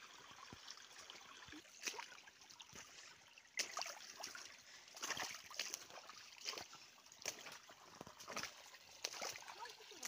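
Footsteps on stones and dry leaves, irregular sharp steps, over a small stream trickling faintly.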